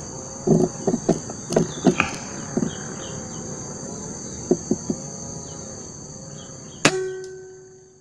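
Insects buzz steadily and high-pitched in the tree canopy, with a few scattered knocks and clicks in the first five seconds. About seven seconds in comes a single sharp air-rifle shot with a short metallic ring that fades away.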